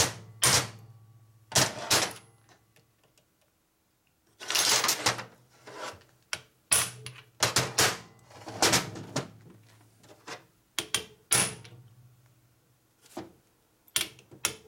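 Hand tools working screws into a Harley transmission case: a string of sharp metallic knocks and clacks at irregular intervals, some with a brief high ring.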